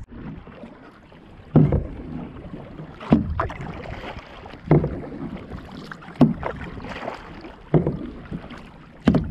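Kayak paddle strokes: the blade dips into the water in a steady rhythm, about one splash every second and a half, six strokes in all, over a low steady wash of water.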